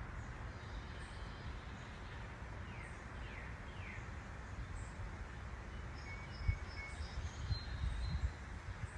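Woodland ambience: birds calling over a steady low rumble, with three quick descending calls about three seconds in and higher short chirps later. A few soft low thumps come in the second half.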